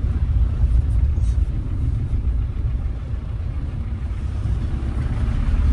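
A car on the move: a low, steady road and engine rumble.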